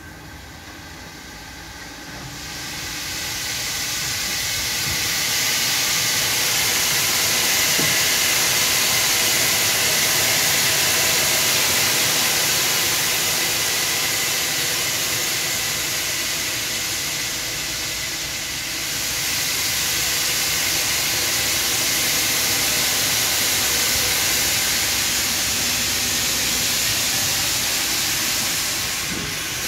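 Ivatt Class 2MT 2-6-2 tank locomotive letting off steam: a loud, steady hiss that starts about two seconds in and eases briefly about two-thirds of the way through.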